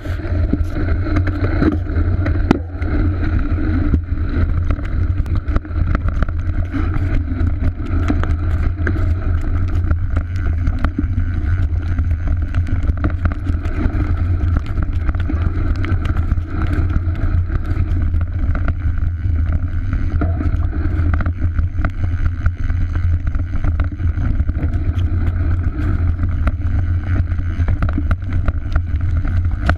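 Mountain bike riding down a rough dirt trail, picked up by a body-mounted action camera: a steady low rumble of wind and ground noise with constant rattling and clicking from the bike over the rough ground.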